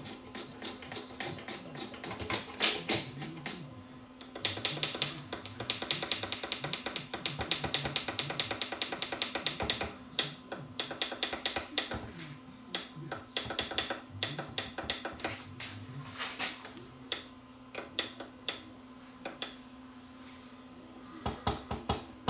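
Dual 1225 changer mechanism clicking and ratcheting as its freshly greased yellow plastic cam gear and linkage levers are worked by hand, spreading the grease through the cam. The clicks turn into a fast run of ticks for several seconds early on, then thin out to scattered clicks over a steady low hum.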